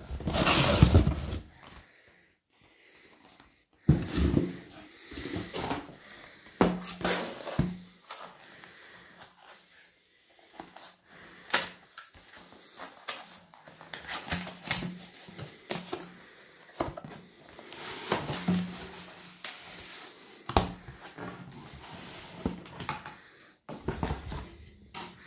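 Cardboard LP mailer being handled and opened by hand: irregular rustling, scraping and knocks of the card, with the record sliding out of its cardboard sleeve near the end.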